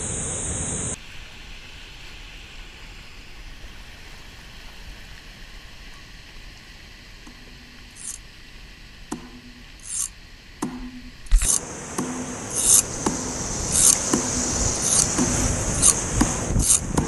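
Whitewater kayaking on a river: first a quieter stretch of flat water with a few faint splashes and knocks. Then, about eleven seconds in, a sudden change to loud rushing whitewater as the kayak runs a Class III rapid, with repeated splashes of water hitting the camera.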